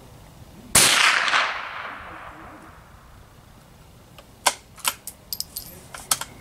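A single shot from a CZ 452 .22 rimfire bolt-action rifle, a sharp crack about a second in with a long fading echo. A few seconds later a quick run of sharp metallic clicks as the bolt is worked to eject the spent case and chamber the next round.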